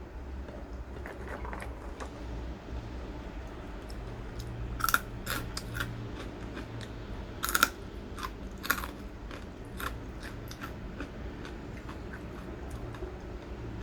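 Crunchy crackers being bitten and chewed, with a series of sharp crisp crunches, loudest in the middle.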